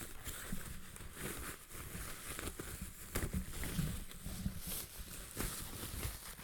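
Packaging crinkling and rustling as items are handled and unwrapped from a subscription box, with small scattered knocks and clicks.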